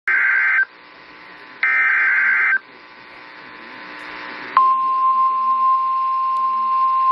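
Emergency Alert System header on NOAA Weather Radio: two short bursts of warbling digital data tones, each about a second long, with faint radio hiss between them. About four and a half seconds in, the steady single-pitch weather radio warning alarm tone starts and holds.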